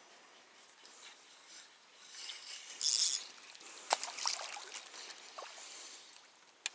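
A small black bass thrashing and splashing at the water's surface beside the boat as it is reeled in. The splashes come in short irregular bursts, loudest just before three seconds in, with a few sharp clicks around four seconds.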